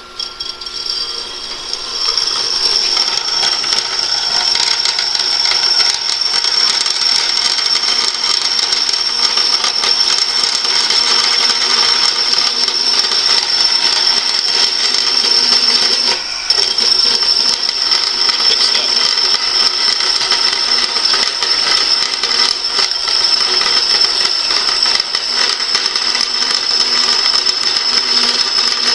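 Small, cheap electric saw running steadily through a cut, with a constant high whine; it briefly eases about sixteen seconds in.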